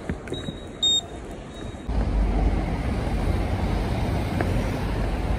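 A subway fare gate gives one short, high beep about a second in. Then, from about two seconds, there is a steady rumble of city street traffic.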